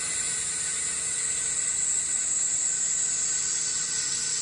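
Small CNC lathe running, with a steady whine and high hiss. Its spindle is turning a small workpiece while a drill held in the gang tool post feeds into the end of it.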